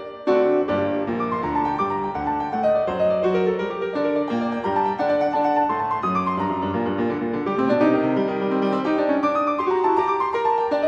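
Instrumental piano music with a steady flow of notes, a melody moving over lower chords.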